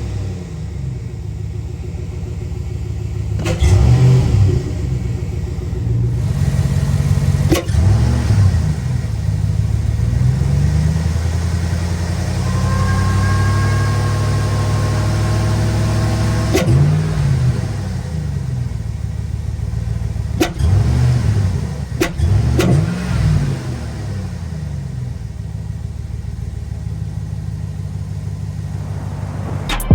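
2008 GMC Yukon's 5.3-litre Vortec V8 running through a muffler-delete exhaust, with a newly fitted cold air intake. It idles between several short revs and holds a higher speed for a few seconds near the middle.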